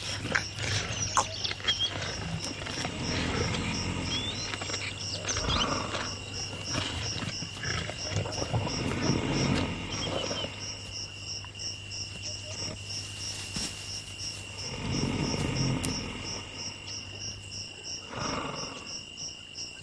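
Lions growling and snarling in irregular bouts over a zebra kill: the aggression of a male lion keeping the rest of the pride off the carcass. A steady, evenly pulsing insect chirp runs behind.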